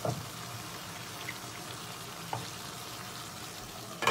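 Green tomato and dried-fish curry sizzling steadily in an open metal wok. A couple of light knocks and a louder clack near the end.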